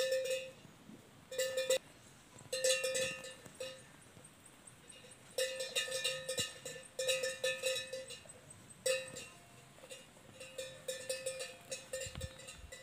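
Bells hung on grazing cattle and a water buffalo clanking in irregular bursts of ringing as the animals feed, with short quiet gaps between the bursts.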